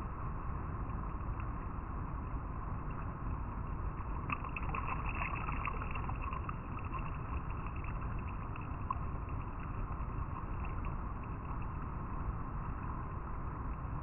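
River water flowing over rocks: a steady rush with fine splashing and trickling, busier about four to seven seconds in.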